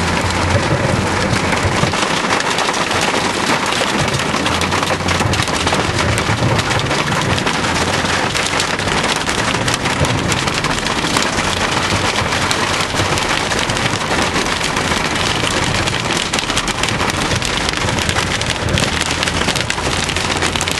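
Heavy rain hitting the roof and windscreen of a large 4WD in a thunderstorm, a dense, unbroken patter of drops, heard from inside the vehicle. Near the start, floodwater splashes up against the front of the vehicle as it drives through.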